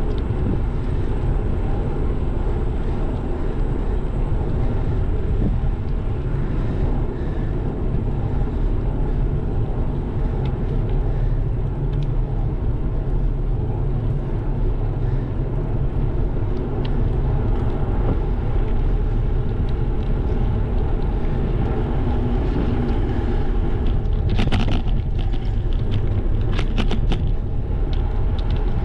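Wind buffeting the GoPro's microphone, with tyre rumble from a moving bicycle, as a steady low noise throughout. A few sharp rattles come near the end.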